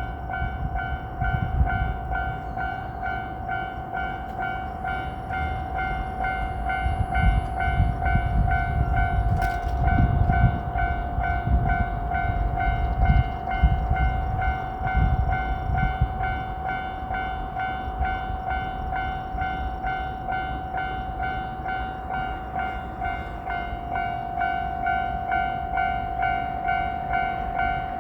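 Japanese railroad-crossing warning bell ringing "kan-kan" in a steady, rapid rhythm while a JR Shikoku 2700 series limited-express diesel train rumbles through the crossing. The train's rumble dies away about sixteen seconds in, and the bell rings on.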